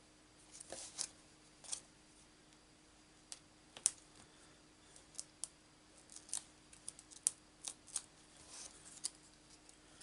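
Hands handling paper and card pieces on a craft table: soft rustles and a scattering of small, irregular clicks, over a faint steady hum.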